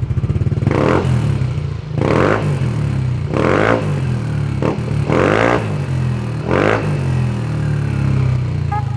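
Yamaha Aerox 155 scooter's single-cylinder engine idling through a JVT Version 3 aftermarket exhaust with silencer, blipped in five short throttle revs about a second and a half apart.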